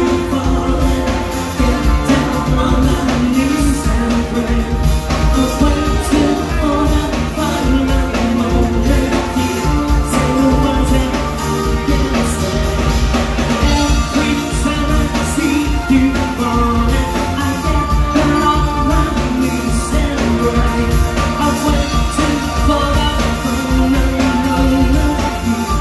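Live rock band playing: a male singer over drum kit, bass, electric guitar and keyboard, with a steady beat.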